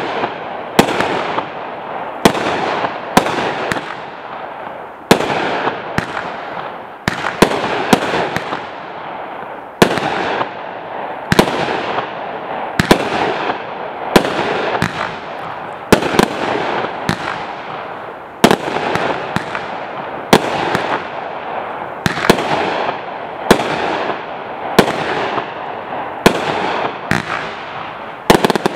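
Aerial firework shells bursting one after another, a sharp bang about every second or so, each followed by a fading hiss from the burst.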